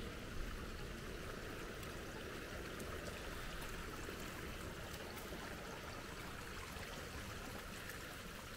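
Shallow rainwater runoff trickling over stones and mud in a small channel: a quiet, steady flow.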